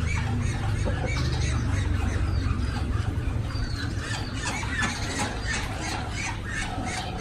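Farmyard animals calling: a scatter of short squeals and squawks over a steady low rumble.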